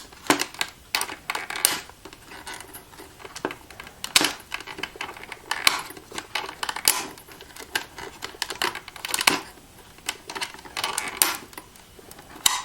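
Irregular small clicks and knocks from a lamp coupler being worked loose and pulled off the end of a fluorescent UV bulb inside an Accubanker D64 counterfeit detector.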